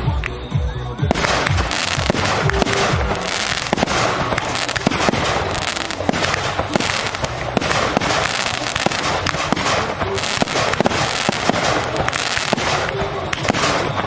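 Fireworks going off: a few deep booms, then from about a second in a dense, continuous barrage of bangs and crackling.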